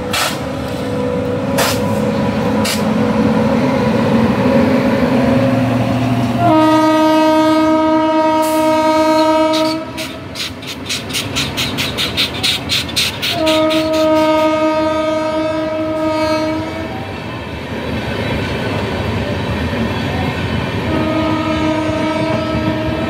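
A passing Indian Railways WAP-7 electric locomotive and its coaches, the locomotive's horn sounding three long blasts of about three seconds each over the steady rumble of the train. Between the first two blasts comes a fast, even run of wheel clatter over the rails.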